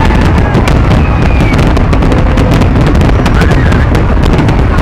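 Large professional fireworks display: a continuous low rumble of shell bursts packed with dense crackling, with a few thin whistles rising and falling.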